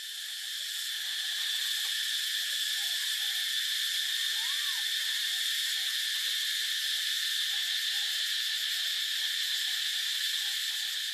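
Steady, dense chorus of insects, a high buzz that runs on without a break or change.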